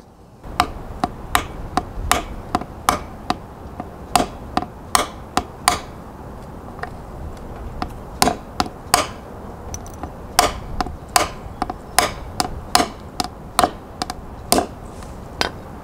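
Claw hammer lightly tapping threaded standoffs into the holes of a 3D-printed drone prop guard, a run of sharp taps at roughly two a second with a short lull around the middle. The strikes are kept gentle so the tops of the standoffs don't mushroom while they are driven home.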